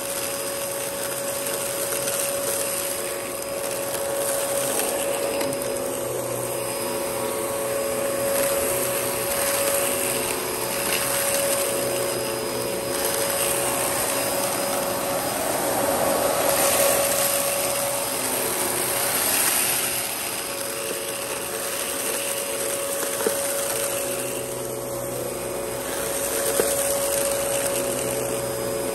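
Dyson DC14 bagless upright vacuum cleaner running steadily over carpet: a constant motor whine with a steady mid-pitched tone and the rush of airflow. The level swells and eases gently every few seconds.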